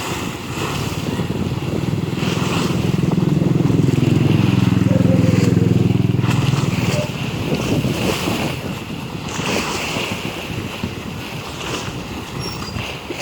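Sea waves washing and wind buffeting the microphone, with a low engine drone rising about a second in, loudest midway, and fading out by about seven seconds.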